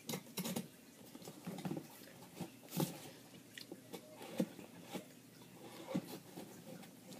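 A cardboard shipping box being cut open with a blade and handled: irregular small scrapes, taps and rustles of cardboard and tape.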